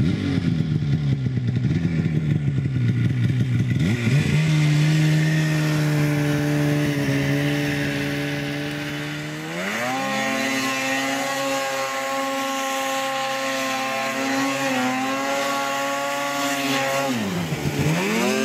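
2012 Polaris Pro-RMK 800 snowmobile's two-stroke twin engine revving as the sled spins a donut in deep powder snow. The pitch climbs steeply about ten seconds in and holds high, then drops sharply near the end and climbs again.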